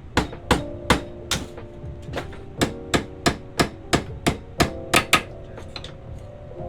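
A hammer striking sheet metal in a quick series of about fifteen blows, roughly three a second, each with a brief metallic ring. After about five seconds it eases into a few lighter taps.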